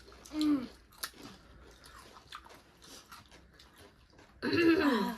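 Close-up eating sounds: chewing and crunching with small, quick clicks of food between the teeth. A short voiced sound comes about half a second in, and near the end a person's voice breaks in loudly.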